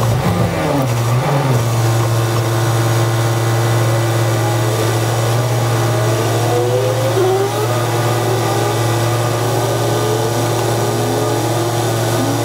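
Commuter bus engine heard from inside the cabin, sped up five times so its pitch runs high. It winds down in the first second, then idles steadily with the bus stopped in traffic, while other vehicles' engines rise and fall around it.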